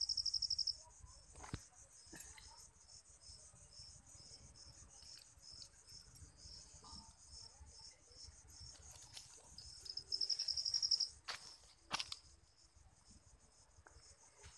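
Crickets chirping at dusk: a fast high pulsing trill, loudest at the start and again around ten seconds in, with fainter chirps and a steady high insect hum in between. A few sharp clicks stand out, one early and two near the end.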